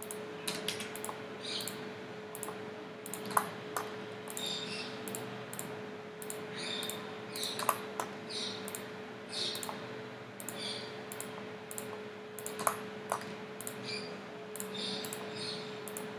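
Computer mouse button clicking over and over at an irregular one or two clicks a second, each click picking the next polygon one at a time, over a faint steady hum.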